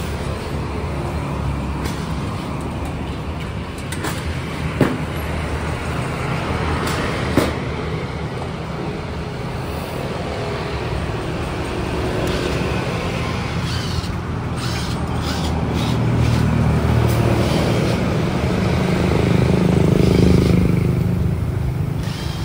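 Steady road traffic noise that swells louder for several seconds near the end, as if a vehicle is passing. Over it come two sharp knocks in the first half and a short run of clattering taps about two-thirds in, from tyre-changing work on a jacked-up SUV.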